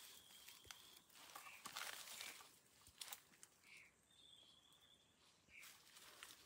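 Very faint crackle of footsteps and brushing through dry leaves and twigs on a forest floor. A thin, wavering high trill sounds twice, once at the start and once around the middle, with a few short high chirps between.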